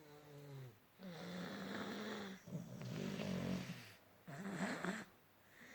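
Snoring: about four snoring breaths in a row, the first falling in pitch and the rest steadier, with short pauses between them.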